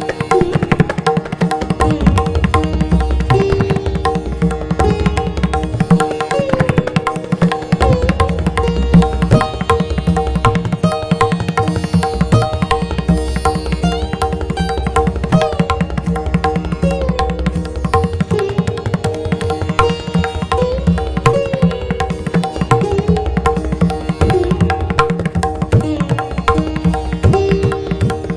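Tabla playing a steady rhythm over a repeating melodic accompaniment with held notes and sliding pitches.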